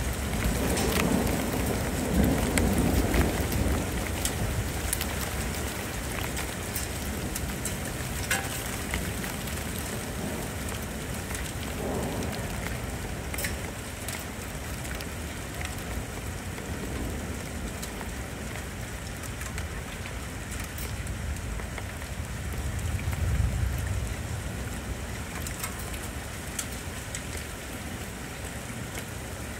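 Steady rain falling, with scattered drops tapping, and low rolling thunder that swells twice: in the first few seconds and again later on.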